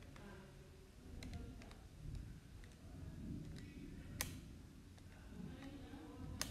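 Faint, scattered light clicks and taps over low room noise, with two sharper clicks a little past the middle and near the end.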